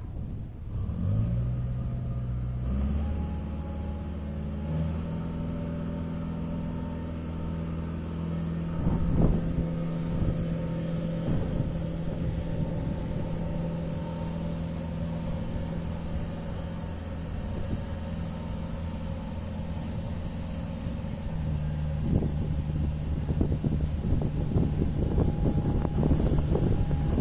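Small harbour ferry boat's engine running with a steady low drone that changes pitch a few times as the throttle changes. It grows louder in the last few seconds as the boat approaches, with wash and wind noise rising with it.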